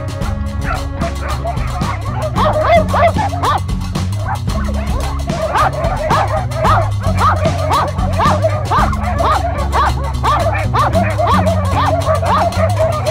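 West Siberian laikas barking continuously, about two barks a second, baying a bear they are holding. Background music with a steady low bass plays under the barking.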